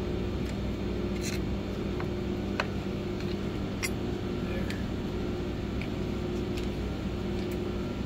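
Steady low machine hum with a couple of fixed tones, over which a handful of light clicks and taps sound at irregular intervals as hand tools are handled at a milling machine's spindle and drill chuck.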